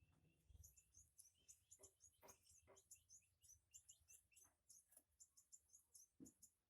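A small bird chirping faintly: quick, high chirps, several a second. A few soft knocks are mixed in, the loudest near the end.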